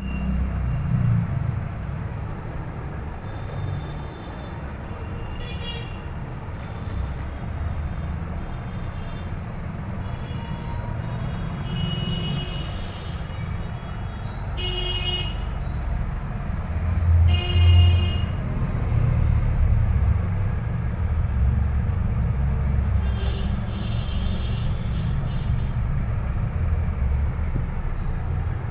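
Steady low background rumble with about six short, high-pitched toots scattered through it, the loudest near the middle.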